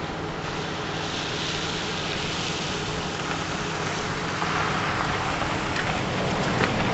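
Hovercraft engine and ducted propeller running as the craft glides off over snow-covered ice, its engine hum growing fainter under a steady rushing hiss of air.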